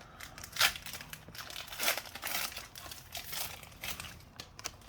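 Foil wrapper of a Pokémon card booster pack crinkling in a string of short crackles as it is handled and opened.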